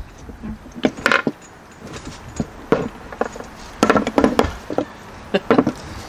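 Scattered metal clinks and knocks as tools and rear disc brake caliper parts are handled on a wooden workbench, the caliper being opened up to fit its pads.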